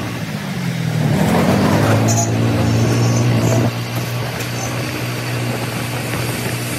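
Motor scooter's small engine running under way, with wind rushing over the microphone. The engine note builds over the first couple of seconds, holds steady, then eases off a little past halfway.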